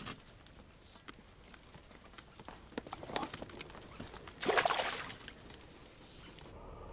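Water splashing in two short bursts, about three and about four and a half seconds in, among light clicks and knocks, from a just-caught roach being handled at the water. Near the end the sound changes to a steady low hum.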